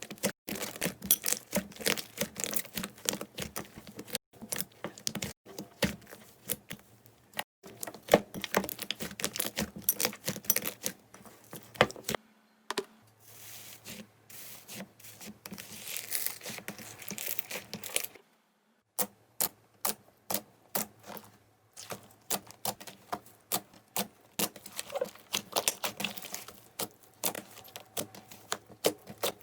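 Slime being squeezed and poked by hand: dense, irregular crackling and popping clicks, with a short break about eighteen seconds in.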